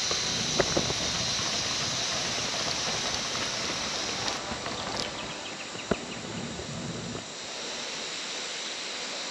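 Steady rushing of rain-fed running water in forest, with a few sharp clicks.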